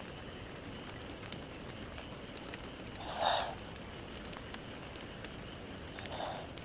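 A sleeping Maltese dog snoring: two short snores about three seconds apart, the first louder, over a steady hiss.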